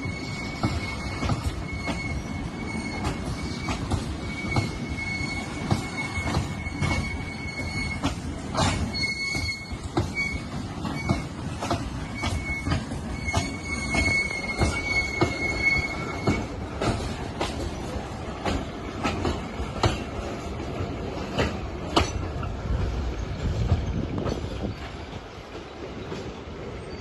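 Freight train wagons rolling past, wheels squealing in a high steady tone on and off through the first half and stopping about two-thirds of the way in, with a steady clatter of wheel clicks over the rail joints throughout.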